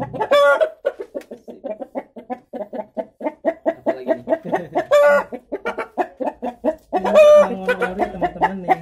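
Bangkok hen clucking in a rapid run of short clucks, about four or five a second, broken by longer drawn-out calls near the start and about five seconds in, and a louder stretch of them near the end.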